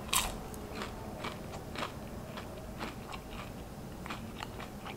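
A person chewing a bite of crispy-breaded spicy chicken nugget: a sharp bite at the start, then a string of soft crunches.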